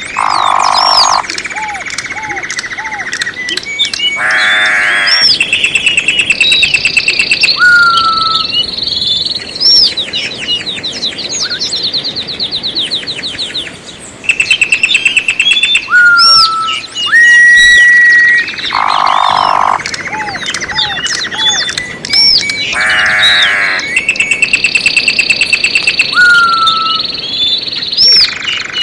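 Several songbirds singing and calling at once: a dense mix of clear whistles, rapid trills and chirps. The same stretch of song repeats about halfway through.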